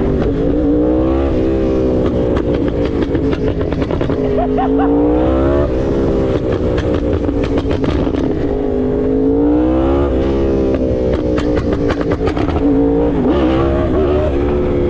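2023 Yamaha R1's crossplane inline-four sportbike engine running under way. It climbs in pitch three times, each climb ending with a sudden drop, and winds down in between, with crackling and rushing air throughout.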